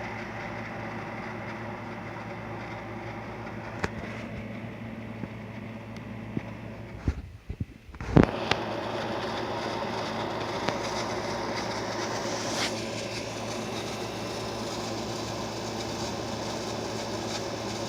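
Steady mechanical hum made of several held tones, breaking off briefly with a few knocks about seven to eight seconds in, then going on as before.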